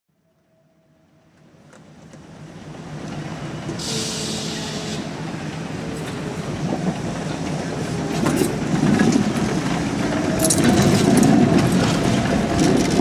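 Articulated electric tram running past on its rails, a rumble that fades in and grows louder. There is a brief hiss about four seconds in, and clicks and rattles of the wheels near the end.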